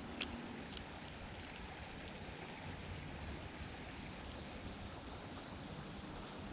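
Faint steady rush of a small creek's water, with a couple of light clicks near the start.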